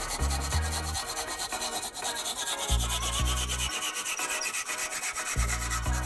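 A hand file rasping back and forth across the end of a wooden block held in a bench vise, shaping and rounding the wood. Low bass notes of background music come and go underneath.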